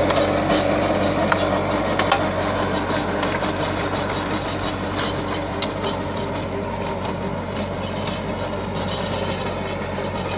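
Compact tractor's diesel engine running steadily as its rear-mounted rotavator churns through grassy soil, with scattered sharp clicks. It grows slightly fainter through the stretch.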